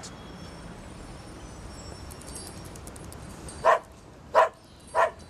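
A pug barking three short, sharp times, about two-thirds of a second apart, after a few seconds of faint steady city-street background.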